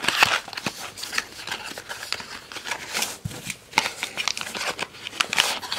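A small cardboard box being opened by hand, its inner box sliding out: a run of cardboard scraping and rubbing with light clicks and knocks.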